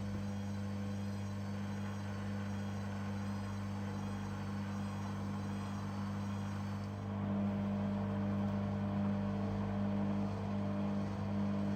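Beko washing machine running with an empty drum: a steady motor hum with a faint wavering high whine. About seven seconds in the whine drops away and the machine gets a little louder.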